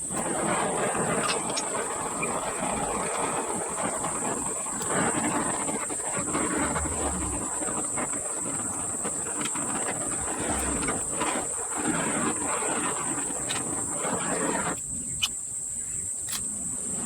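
Oxy-acetylene torch flame hissing steadily during welding, cutting out about fifteen seconds in. A steady high insect drone, like crickets, runs underneath.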